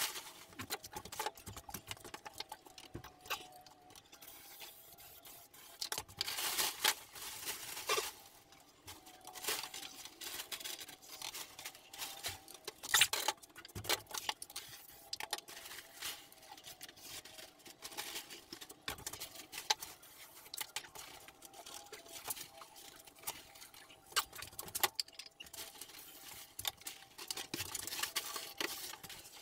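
Irregular scraping, tapping and tearing sounds of hand work on plasterboard, in short scattered bursts with a few sharper knocks.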